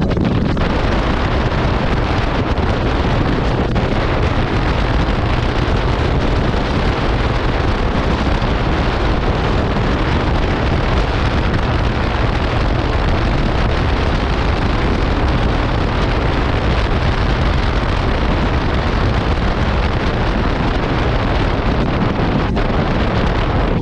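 Heavy, steady wind rush over the microphone of a motorcycle riding at road speed, with the low drone of the 1985 Honda CB700SC Nighthawk's inline-four engine underneath.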